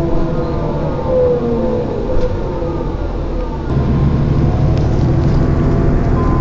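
Moving road vehicle heard from inside: engine and road rumble, with whining tones gliding down in pitch over the first few seconds. The low rumble grows louder just under four seconds in.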